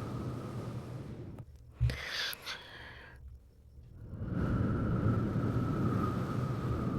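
Slow blowing of air onto the microphone, a low rumbling hiss. It breaks off about a second and a half in for a soft bump and a short breath and mouth sound, then starts again about four seconds in.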